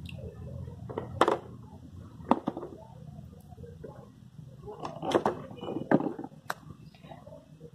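Vegetables being put into a basin of water: a few sharp knocks and plops, spaced a second or more apart, with a small cluster of them about five seconds in.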